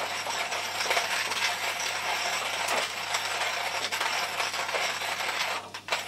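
Rhinowares hand coffee grinder cranked at a steady, even speed, its burrs crunching coffee beans at the finest grind setting: a continuous gritty crackle of small clicks that breaks off briefly near the end.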